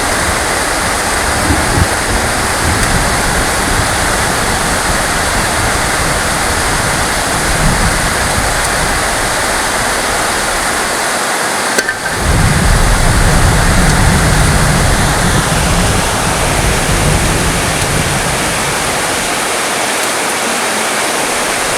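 Heavy rain falling in a steady, dense hiss. About twelve seconds in the sound briefly dips, then a low rumble of distant thunder swells under the rain for a few seconds.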